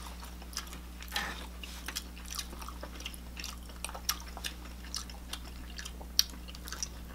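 Close-up sounds of eating: chewing and biting into cheesy garlic-style bread, with scattered small clicks of a knife and fork against a plate. One sharper click comes about six seconds in.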